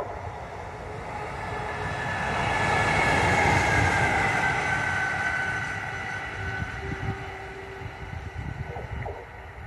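DB Cargo class 185 electric locomotive running light past the listener: the rumble of its wheels on the rails swells to a peak three to four seconds in, then fades as it draws away. A high electric whine rides on top and drops slightly in pitch as the locomotive goes by.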